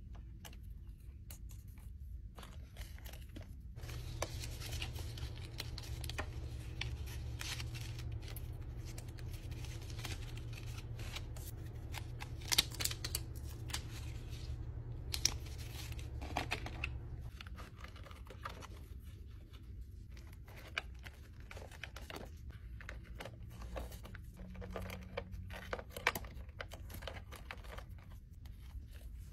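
Vinyl stickers and paper handled close up: slid out of clear plastic bins and laid onto packaging, with rustling and frequent sharp clicks and taps. A steady low hum runs underneath through the middle stretch.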